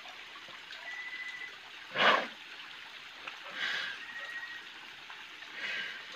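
Shallow stream water trickling, with one short splash about two seconds in and a few faint, short, high-pitched chirps.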